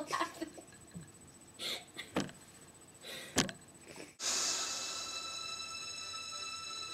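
Short breathy bursts of stifled giggling and snorting. About four seconds in, an abrupt cut to electronic music with steady held tones.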